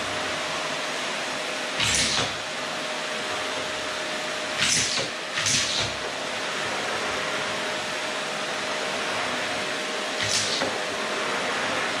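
Bagless canister vacuum cleaner running steadily, a constant rush with a thin steady whine, while its floor nozzle is pushed over a wooden floor. It gets briefly louder four times: about two seconds in, twice around the middle, and once more near the end.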